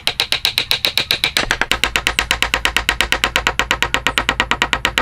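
Electronic music with a fast, even beat; a deep bass comes in about a second and a half in.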